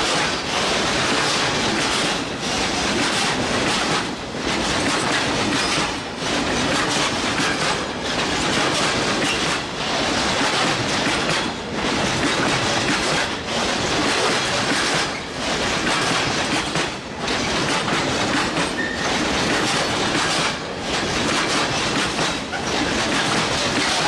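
Wheels of a heavy train rolling over bad rail joints. The noise is loud and steady, dipping briefly in a regular rhythm about every two seconds.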